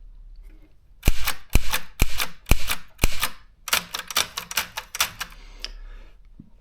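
Consul portable typewriter being typed on: a run of sharp key strikes, a few a second, starting about a second in. After a short pause near the middle comes a quicker, softer run that stops about a second before the end.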